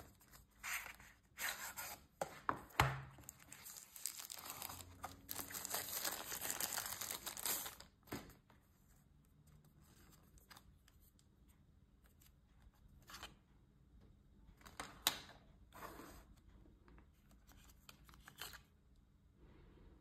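Cardboard box and paper packaging rustling and sliding as a small electronics kit is unboxed by hand, with one continuous stretch of rustling lasting about four seconds in the first half. It is quieter after that, with a few short clicks and knocks as the small plastic charging case is handled and opened.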